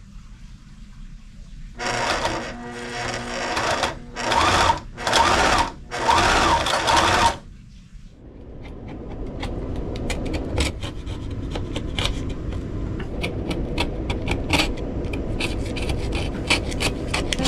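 Electric sewing machine stitching fabric in four bursts, the first about two seconds long and the last stopping about seven and a half seconds in. After it, a quieter steady sound with fast light ticking.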